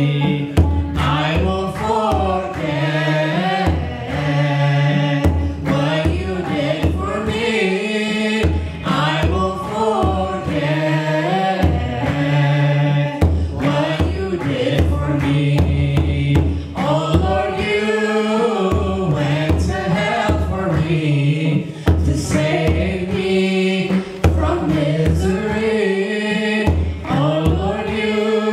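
Ethiopian Orthodox mezmur hymn sung in English by male and female voices, with a steady beat on a kebero drum.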